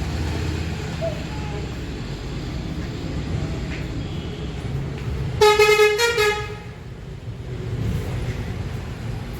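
A vehicle horn honks twice in quick succession about five and a half seconds in, over a steady low rumble of engine and road noise.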